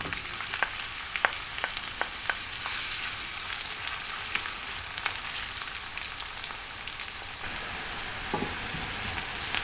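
Chopped onion sizzling steadily in hot vegetable oil in a non-stick frying pan, being fried to golden. Scattered small clicks and scrapes come from a wooden spoon stirring it, most of them in the first few seconds.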